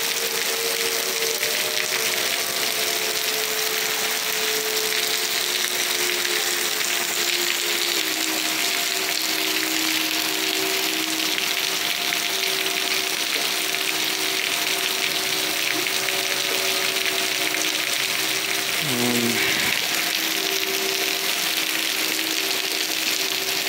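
Heavy rain hissing steadily, with outdoor tornado warning sirens sounding at a steady pitch over it; the siren tone drops briefly about 19 seconds in.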